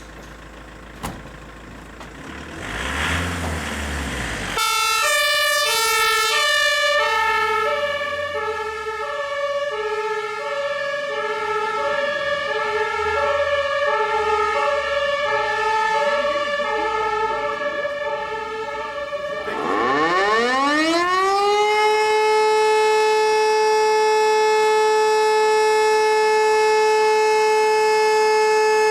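A fire engine's two-tone siren (German Martinshorn) alternating between two pitches for about fifteen seconds. Then an electromechanical civil-defence siren winds up, rising steeply in pitch, and holds one steady wail.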